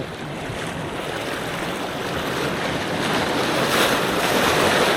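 Ocean waves washing and surging, a steady rush that builds and grows louder toward the end.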